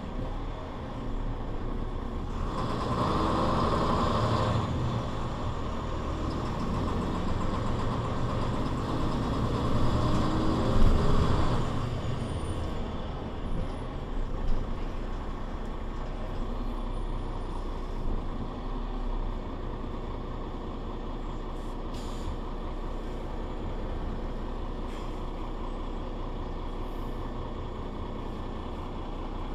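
Mercedes-Benz Citaro C2 city bus with its Voith automatic gearbox running. It is louder for the first ten seconds or so, with a couple of short peaks, then settles to a quieter, steady run.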